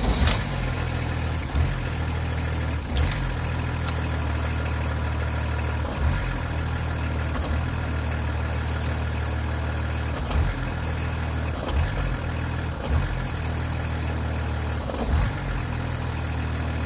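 BMW E39 turbodiesel inline-six idling unevenly, with an irregular stumble or surge every few seconds. This is the rough running that the owner suspects lies in the DDE diesel engine electronics.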